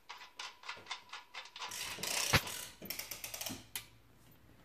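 Axle nut being spun by hand onto the threaded axle of a Bafang SWX02 geared hub motor: a run of light metallic clicks and rattles, busier in the middle with one sharp knock.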